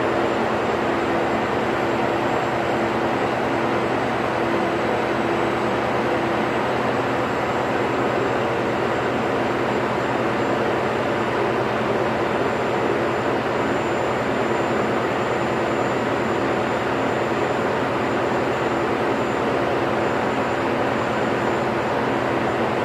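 Ship's engine-room machinery running steadily: an even drone with a constant low hum.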